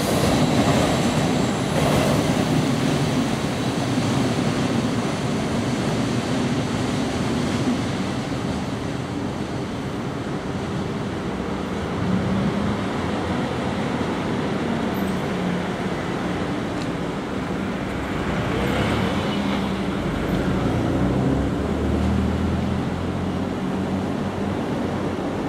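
Container freight train's flatcars rolling away along the track, the rumble of the wheels on the rails easing off as the last wagons recede.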